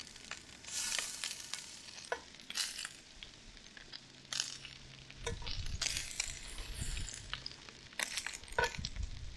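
Fish meatballs sizzling in hot oil in a very hot cast-iron skillet, the sizzle flaring up in short bursts as they are set down and turned, with small clinks of metal tongs against the pan. A low rumble runs under the second half.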